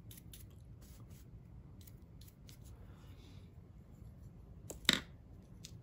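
Faint scratchy strokes of a dry fan brush working pastel powder onto a small 3D-printed model skip, in quick strokes over the first couple of seconds. A single sharp tap follows about five seconds in.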